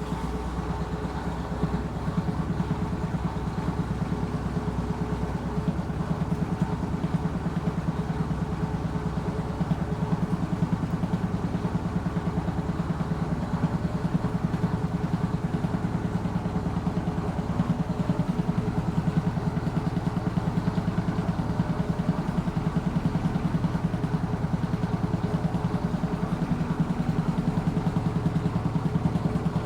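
Washing machine on its spin cycle: a steady motor hum with a rapid, even pulsing from the turning drum.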